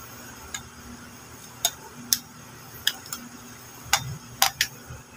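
Ladle clinking against the side of a stainless steel pot while stirring greens in boiling water: a string of sharp clinks at uneven intervals, the loudest two close together near the end.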